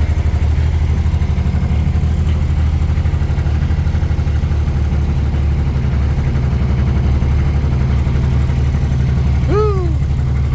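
Bobcat 116 excavator's diesel engine idling steadily with an even, rapid chug, still cold just after a cold start. About a second before the end, a brief rising-and-falling tone sounds over the engine.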